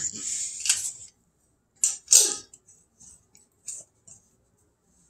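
A few short scrapes and small clicks of a metal spoon against a glass jar of molasses as the molasses is scooped out. There are two louder scrapes a little under two seconds in, then a few faint ticks.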